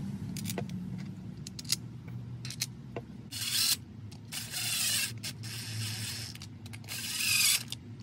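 Ratchet clicking as the crankcase bolts of a Stihl MS250 chainsaw are run down: a few single clicks, then four short rasping runs of about half a second each from about three seconds in. A low steady hum lies underneath.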